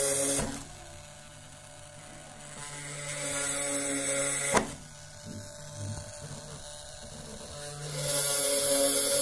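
Small DC-motor spindle of a homemade PCB drill press running at high speed, whirring with a high hiss as its fine bit drills holes through a copper circuit board. It runs in bouts: one ends about half a second in, the next builds up and cuts off with a sharp click partway through, and a third starts near the end. The machine switches off by itself when the handle is released.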